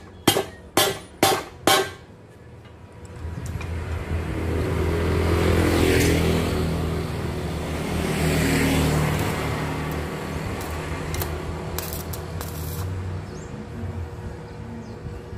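Four quick hammer blows in the first two seconds. Then a motor vehicle passes on the road, a rumbling engine sound that swells twice, loudest in the middle, and fades away.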